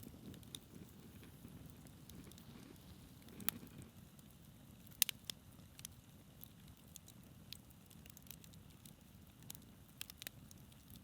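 Campfire burning quietly: wood crackling with scattered, irregular sharp pops, the loudest about three and a half and five seconds in, over a faint low rumble.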